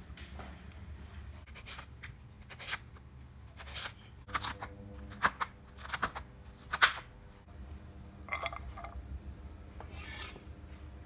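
Irregular scraping and rubbing of vegetables and kitchen utensils against a bowl, in short strokes about a second apart, a few with a brief ring from the bowl.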